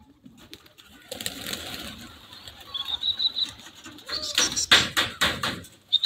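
Flock of domestic pigeons taking off with a rush of flapping wings, loudest in a quick run of sharp wing claps about four seconds in and again at the very end. A few high bird chirps come about three seconds in.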